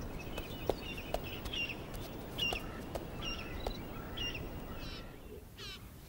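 Outdoor bird ambience: small birds chirping over and over in short high calls, with a quick trill near the end. A few faint ticks sound now and then.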